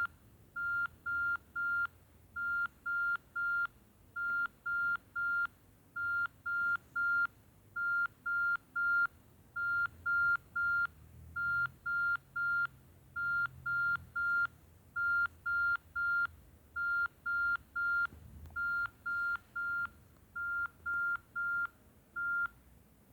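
Nokia 6070 mobile phone ringtone: a simple high beeping tone in groups of three short beeps, the group repeated steadily about every 1.8 seconds, stopping shortly before the end.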